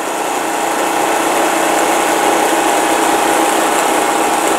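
Worx JawSaw corded electric chain saw running under load, its chain cutting through a fallen tree limb: a steady mechanical whine that builds slightly in loudness.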